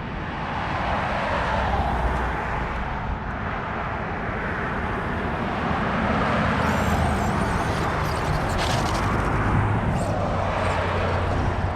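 Steady vehicle running noise with a low hum, building over the first few seconds and then holding.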